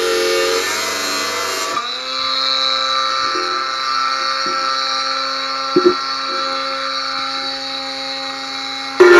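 Parkside battery-powered angle grinder running as its cut-off disc cuts a thin steel barbecue leg. The motor whine sags in pitch under load for the first two seconds, then rises and holds steady, with a few light knocks of the disc against the metal around the middle.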